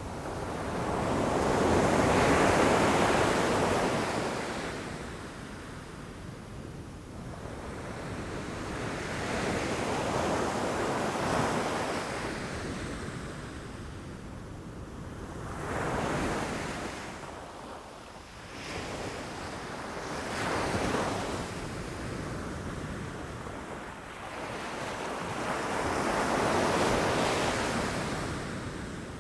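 Ocean waves breaking against rocks, the surf swelling and ebbing in about five surges, the loudest about two seconds in and another near the end.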